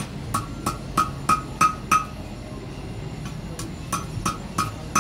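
Hand hammer striking a thin red-hot iron rod on the horn of a steel anvil, each blow ringing. Six blows about three a second, a pause of about a second and a half, then five more.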